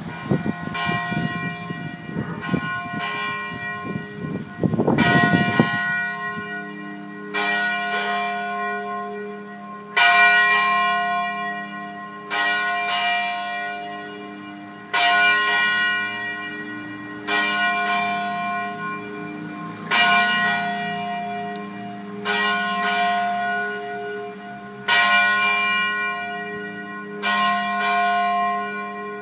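Church tower bells ringing in slow strokes, about one every two and a half seconds, each stroke ringing on into the next, with louder and softer strokes alternating. Wind rumbles on the microphone during the first few seconds.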